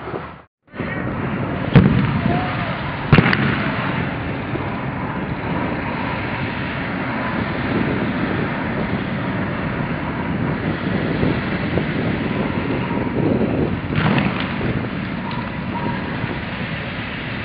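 Two sharp, loud bangs about a second and a half apart, over a steady background hiss, with a few fainter knocks near the end.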